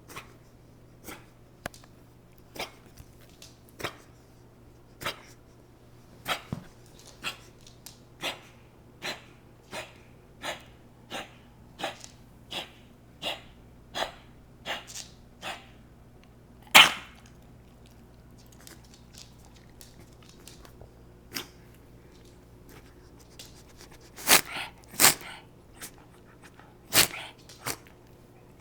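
Beagle with bronchitis coughing and wheezing. A long regular run of short sounds comes about three every two seconds, then one loud cough, then after a pause a closing cluster of louder coughs.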